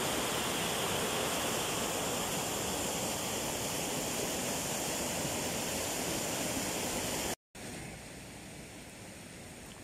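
Water rushing over a low river weir: a steady, even wash of churning white water. About seven seconds in it cuts off abruptly and gives way to a much quieter steady hiss.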